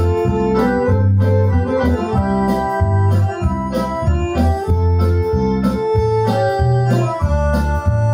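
Roland FR-7 digital V-Accordion playing a melody with chords over a steady bass, a low bass note sounding about once a second.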